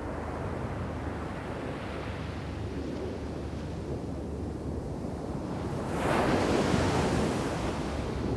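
Ocean surf breaking on a steep beach: a steady wash of waves, then a big wave crashes in the shore break about six seconds in, the loudest moment, its hiss fading after.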